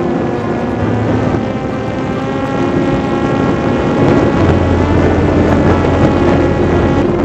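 Electric RC plane's brushless outrunner motor and propeller running in flight, a steady whine of many pitches, with wind rushing over the onboard camera's microphone. It gets a little louder and heavier about four seconds in.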